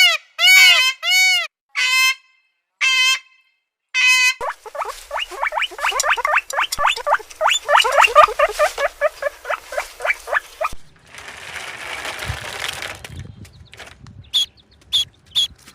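Young farm animals calling across several clips. First comes a run of separate high, pitched calls about half a second to a second apart. Then a dense chorus of rapid chirping peeps, a short stretch of hissing noise, and finally sharp single peeps about twice a second.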